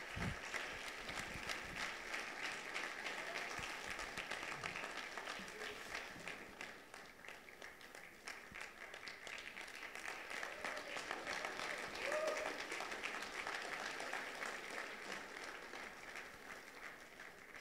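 Audience applauding: many hands clapping together, fading away near the end.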